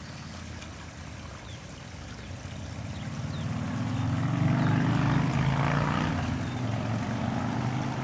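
An engine drones steadily, swelling louder from about three seconds in and staying strong.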